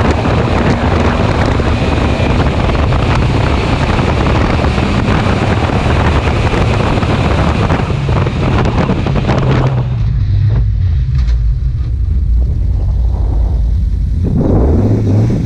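Škoda Fabia's 1.4-litre 16-valve four-cylinder engine at speed, with heavy wind rush on the bonnet-mounted microphone. About ten seconds in the wind noise drops away as the car slows to a stop and the engine idles, then it revs up again near the end as the car pulls away.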